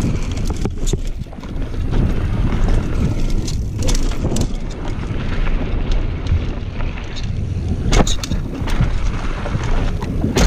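Mountain bike descending a dirt trail: wind buffeting a head-mounted camera's microphone over the rumble of tyres and the bike rattling, with several sharp knocks as it hits bumps, the loudest about eight seconds in.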